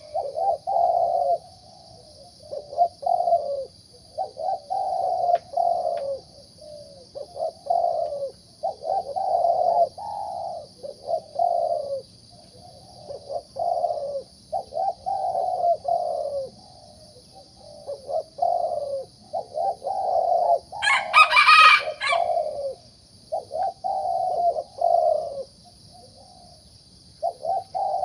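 A caged zebra dove cooing over and over, in phrases about a second long with short gaps between them. This is a young bird's competition song, of the 'rising middle-pitched' voice type. One louder crowing call breaks in about three quarters of the way through, and a steady high whine runs underneath.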